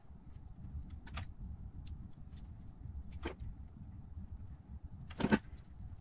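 Wire strippers clicking and snapping as a limit-switch wire is cut and stripped, with three distinct snaps, the loudest about five seconds in, and small handling ticks between them over a low background rumble.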